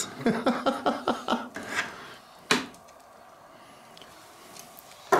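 Stainless-steel lid-holder racks rattling and clinking as they are lifted out of a sous-vide water bath. A quick run of light clicks is followed by a single sharp clank about halfway through and another right at the end.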